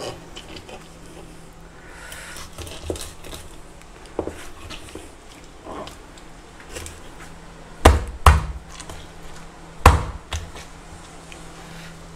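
Kitchen knife cutting and scraping along the spiny edge of a John Dory on a plastic cutting board, with small clicks and scrapes, and three loud knocks on the board, two close together about eight seconds in and one about ten seconds in.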